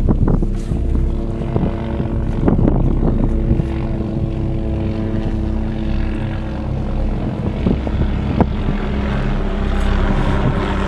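Light aircraft engine and propeller droning steadily, several even tones held over a rushing noise, with a few brief knocks.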